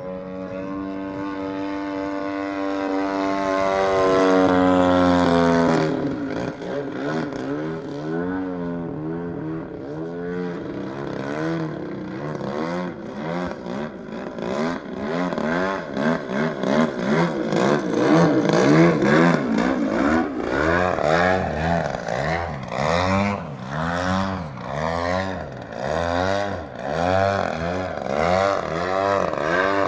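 Desert Aircraft DA-60 single-cylinder two-stroke gas engine on its stock muffler, turning a 24x9 carbon prop on an 87-inch Extra 300 RC aerobatic plane in flight. At first it is a steady drone that grows louder, then drops in pitch and level about six seconds in as the plane passes. After that the engine's pitch swings up and down about once a second as the plane manoeuvres.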